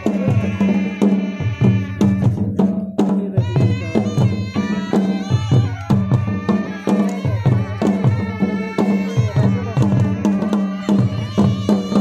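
Live traditional Zanskari folk music: a melody over a steady, regular drumbeat.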